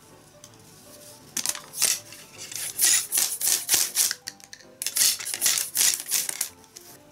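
A wide-bladed knife scraping and shaving along a bamboo strip in quick repeated strokes, about three a second, with a short pause about halfway.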